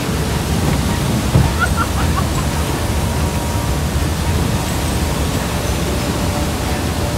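Rhine Falls pouring close by: a steady, loud rush of falling and churning water.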